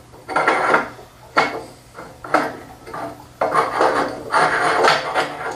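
A 315-watt ceramic metal halide lamp, held in a cloth, being pushed and worked into its socket in an aluminium reflector fixture: scraping, rubbing and rattling in five or so short bursts, as the lamp has not yet seated.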